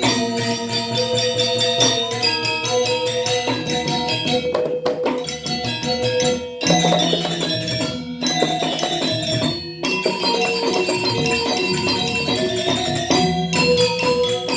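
Balinese gamelan Semar Pagulingan playing dance music: bronze metallophones struck in fast, dense patterns over steadier held notes, with a few brief sudden stops where the whole ensemble breaks off together and comes back in.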